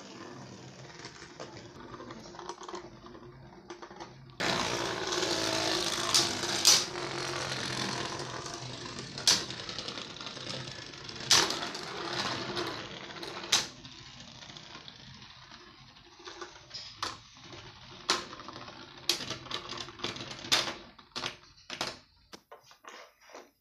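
Beyblade spinning tops whirring and rattling on a plastic stadium floor, with sharp clacks as they strike each other. The whirring gets suddenly louder about four seconds in, then fades toward the end into scattered clicks.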